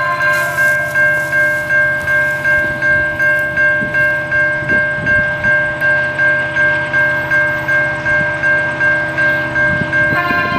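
Railway crossing warning bell ringing steadily, about three strokes a second, as a train approaches. Near the end the train's horn comes in over the bell.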